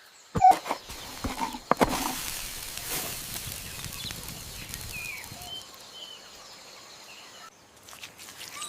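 A few sharp knocks or steps, then steady outdoor noise with a few short chirps, which cuts off suddenly near the end.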